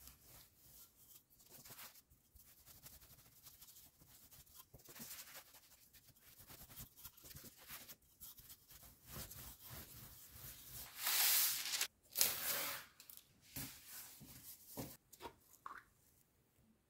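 A wooden rolling pin rolling and rubbing over yeast dough on a floured wooden table, a soft steady scraping. About eleven seconds in come two louder bursts of rustling, then a few light knocks and clicks as a glass jar of jam is handled and opened.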